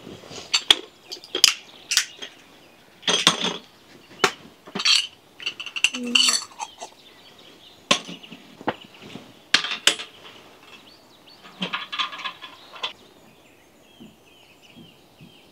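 Irregular clinks and knocks of dishes and metal utensils being handled, a dozen or so sharp strikes with some ringing, thinning out after about 13 seconds. Small birds chirp faintly in the background.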